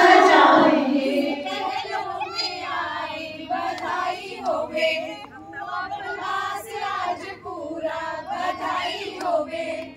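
A group of women singing a Hindi devotional song together. The singing drops in loudness about a second in and carries on more softly.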